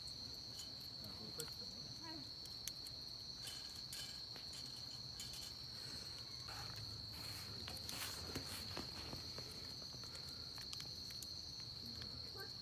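Insects trilling, one steady high-pitched tone without a break, with scattered faint clicks.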